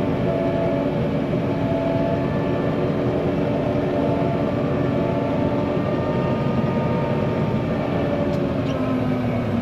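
Steady running noise of a slow-moving vehicle with a ULV mosquito fogger operating. A few faint engine tones drift slowly up and down in pitch over a constant noise bed.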